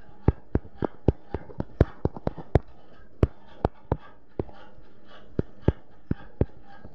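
Fingertips tapping a smartphone touchscreen: a quick, irregular run of sharp clicks, about three or four a second for the first four seconds, then a few more spaced out, over a steady background hiss.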